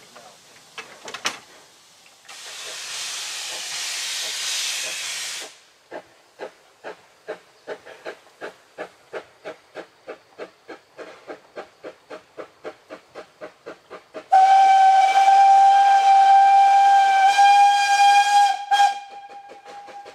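Narrow-gauge steam locomotive working: a few seconds of steam hiss, then even exhaust beats at about two and a half a second. About two thirds of the way in comes a loud, steady whistle lasting about four seconds, which cuts off while the beats carry on.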